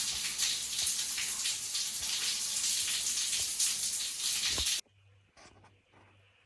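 Water running steadily from a tap, which cuts off suddenly about five seconds in, leaving a few faint soft ticks.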